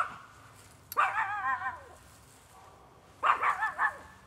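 An animal calling outside, high and wavering: a longer wobbling cry about a second in, then a quick run of four or five short calls near the end.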